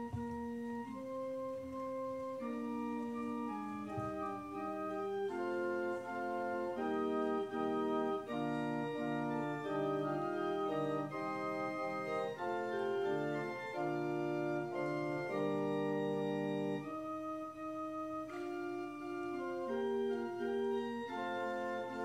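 Organ playing a slow succession of sustained chords, each held for about a second before the next.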